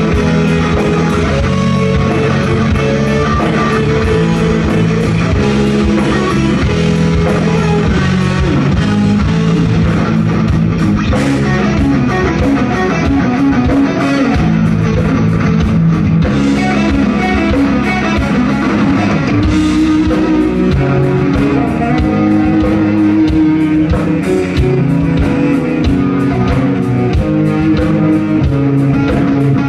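A live instrumental rock band playing loudly: extended-range electric bass and other electric basses or guitars over a drum kit.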